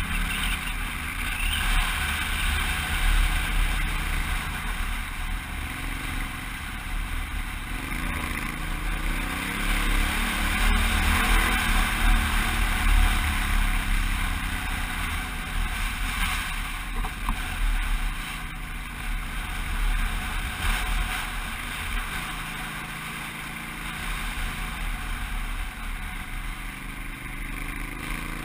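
Honda Africa Twin motorcycle engine running under way on a dirt trail, its pitch climbing a third of the way in and easing off again, over steady wind rumble on a helmet-mounted microphone.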